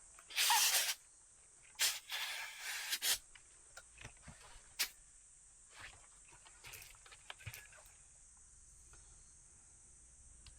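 Several short hissing, rustling bursts in the first three seconds, then a few scattered clicks, over a steady high chirring of insects.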